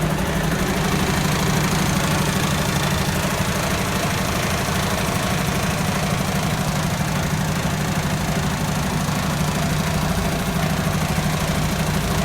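IVECO Stralis 560's Cursor 13 straight-six diesel idling steadily after a cold start.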